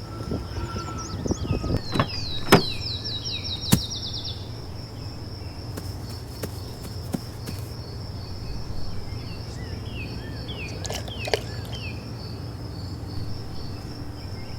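Outdoor ambience: a steady, high, pulsing insect trill over a low hum, with a run of quick falling bird-like chirps about two to four seconds in and two sharp clicks during them.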